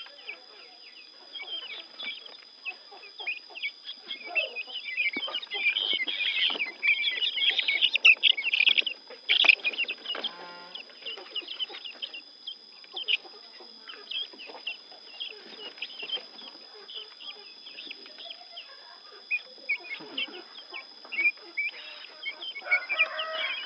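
A flock of young helmeted guinea fowl (keets) calling: many short, high chirps and peeps overlapping, busiest and loudest from about five to ten seconds in.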